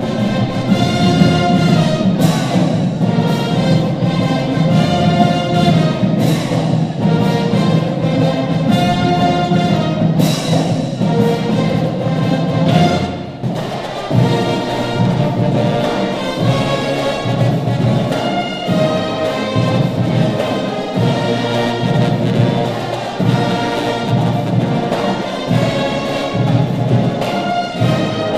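School pep band of brass and drums (sousaphones, trombones, trumpets and drumline) playing a loud brass tune over a drum beat. About halfway through the music drops away for a moment, then carries on with a steady, regular beat.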